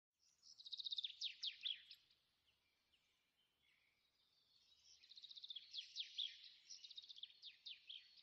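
A songbird singing two phrases about four seconds apart, each a rapid high trill followed by several quick downward-sliding notes.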